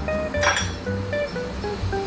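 Background music: a gentle plucked-string tune whose notes step downward, with a sharp clinking hit about half a second in.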